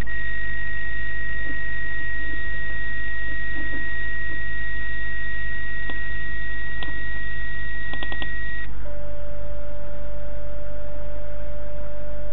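Radio receiver audio: a steady hiss with one continuous high beep tone, which gives way about nine seconds in to a steady lower tone, over a constant low hum, with a few faint clicks just before the change.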